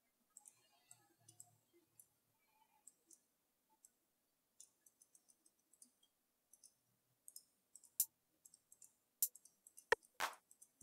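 Faint, sparse clicks of a computer mouse, coming more often in the last few seconds, with several sharper clicks near the end.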